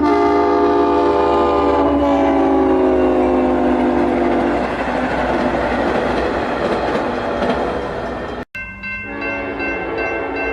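Multi-chime train horn sounding, its chord falling steadily in pitch over the first few seconds, then giving way to the rumble and rattle of the passing train. About eight and a half seconds in the sound cuts out abruptly, and another horn chord comes in, held steady.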